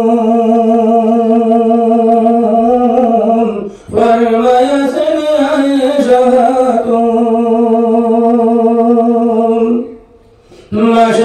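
A man singing a Bengali gazal unaccompanied into a microphone, in long held notes, breaking off briefly about four seconds in and again for a breath near the end.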